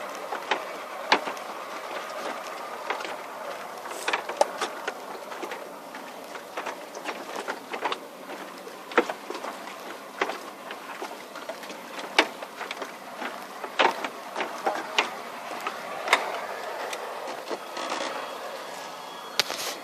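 A boat engine running steadily, with irregular sharp knocks and clicks scattered over it.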